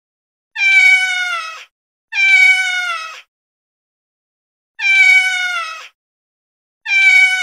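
Domestic cat meowing four times with silent gaps between, each meow about a second long and falling slightly in pitch; it is the same meow repeated.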